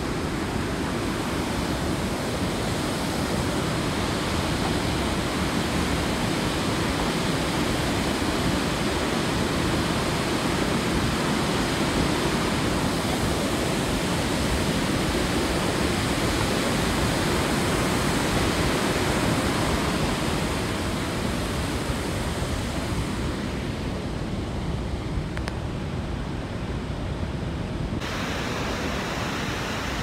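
Steady rushing of river rapids, a continuous even wash of water noise. Near the end the hiss thins out for a few seconds, then comes back suddenly.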